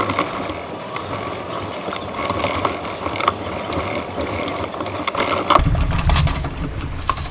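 Small hardboard creasing tool rubbed and scraped along the folded paper-plate edges against a hardboard template, a busy rasping scratch. It stops about five and a half seconds in, and a low rumble takes over.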